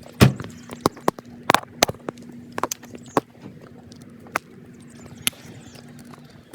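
Irregular clicks and knocks, about ten in all, the loudest just after the start, from handling a ratchet and 10 mm socket while reconnecting a car battery terminal. A faint steady hum runs underneath.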